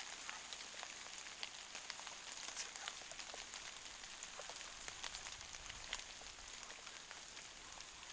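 Rain falling: a soft, steady hiss with many scattered ticks of individual drops striking.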